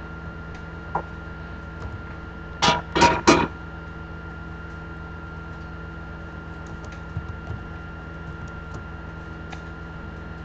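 Kitchen cookware clanking: three quick, loud clanks close together about two and a half seconds in, then a few light clicks, over a steady electrical hum.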